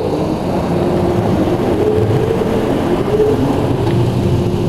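Spot-free rinse water from a Ryko SoftGloss Maxx automatic car wash beating on the car, heard from inside the cabin as a loud, steady rush with a wavering low hum under it.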